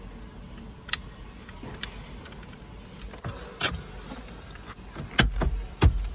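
Sharp hard-plastic clicks as wiring plugs are seated on the back of a BMW X5 F15 climate-control and radio panel. Near the end comes a quick run of louder knocks and thuds as the panel is pressed and snapped into the dashboard.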